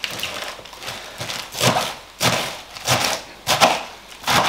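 A big kitchen knife cutting through a head of lettuce, shredding it, on a chopping board. There are about six cuts, roughly one every two-thirds of a second, and the first ones are lighter.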